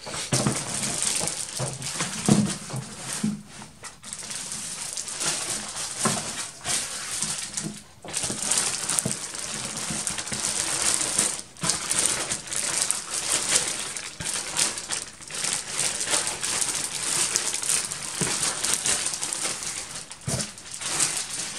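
Clear plastic packing bags crinkling and rustling as covered model-airplane wing panels are handled and lifted out of a cardboard box, with a couple of soft knocks a few seconds in.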